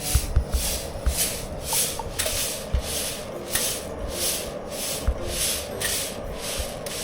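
Steady rhythmic scraping or rubbing, about two and a half strokes a second, with small knocks between the strokes.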